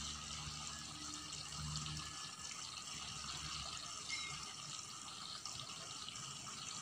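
Faint steady trickling of water, with a low hum that fades out about two seconds in.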